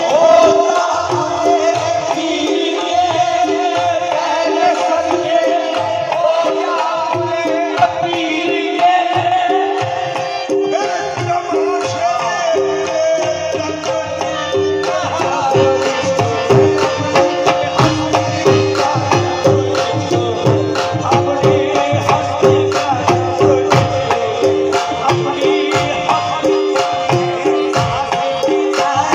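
Live qawwali instrumental passage: harmoniums playing a sustained melody with a repeating figure, accompanied by tabla. The tabla beat grows louder and busier about halfway through.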